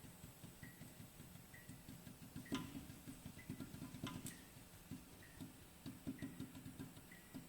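Faint, rapid light knocking from a BMW i3 front shock absorber strut as its piston rod is rocked back and forth by hand: play in the worn rod at its centre position, the cause of the front-suspension knock. Two sharper clicks come about two and a half and four seconds in.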